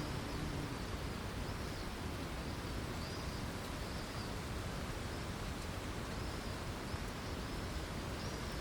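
Early-morning lake ambience: a steady outdoor hiss, with a small bird repeating short high chirps about once a second. A low insect buzz fades out in the first half-second.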